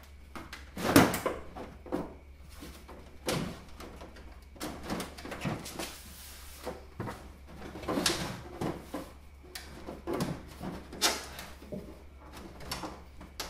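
Plastic rear cover of an LG CRT television being tugged and worked loose, a run of irregular knocks, creaks and clatters, the loudest knock about a second in. The cover won't come free because one screw is still holding it.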